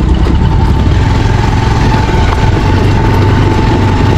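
Motorcycle engine running steadily under way, heard from on the bike, a loud, even low rumble with a faint steady whine above it.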